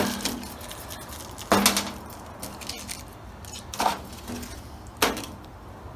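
Three short knocks and clicks of copper oil-line tubing and its compression fittings being handled and fitted together, the loudest about one and a half seconds in.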